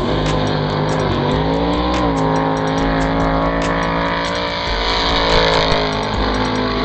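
A car's engine running hard under acceleration, its pitch climbing and dropping around one to two seconds in, then holding fairly steady.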